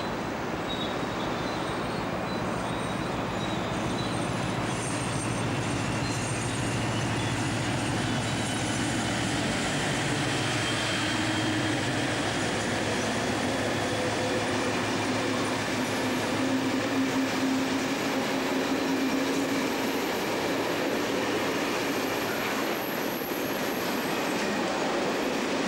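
Class 56 diesel locomotive with its Ruston-Paxman V16 engine passing at the head of a freight train. Its low engine drone fades about ten seconds in, and loaded flat wagons follow, rolling by with a steady rumble and some high wheel squeal.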